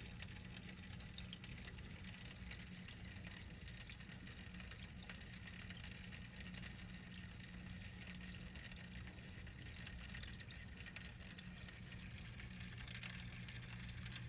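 Aquarium filter running: water steadily trickling and dripping back into the tank, with many small drip ticks over a steady low hum.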